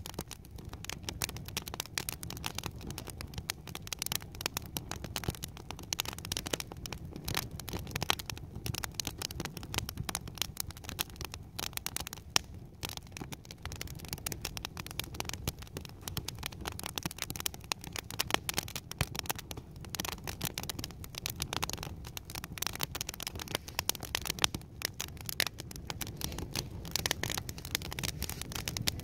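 Teepee campfire of sticks burning, crackling and snapping with dense, irregular pops over a steady low rumble.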